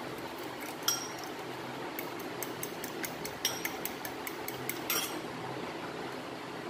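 Metal fork beating raw eggs in a glass bowl, clicking and clinking against the glass in quick, irregular strokes, with a louder clink about a second in and another near five seconds, where the beating stops.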